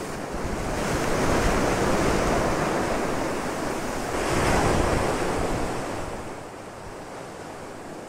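Rough surf breaking and washing over lava rocks, in two surges, the second about four and a half seconds in, then easing off.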